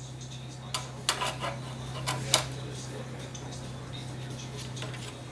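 Light metallic clicks and clinks as a DLP chip mounting bracket and small screws are handled and set against the TV's sheet-metal chassis, several in quick succession in the first half, over a steady low hum.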